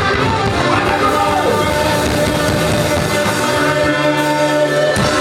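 Live band playing loud rock/soul music with a singer. Long notes are held from a little over halfway in.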